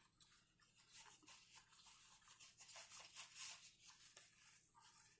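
Quiet, rapid, irregular crunching of someone chewing a crisp toasted chicken and cheese quesadilla.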